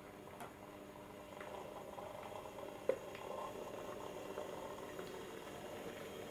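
Small electric motor of a Hattons SE&CR P class OO gauge model locomotive whirring faintly as it crawls along at very low power, with one sharp click about three seconds in.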